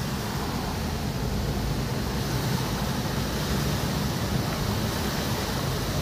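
A car driving through deep floodwater, its tyres churning the water in a steady rushing wash, heard from inside the cabin over a low rumble of the car running.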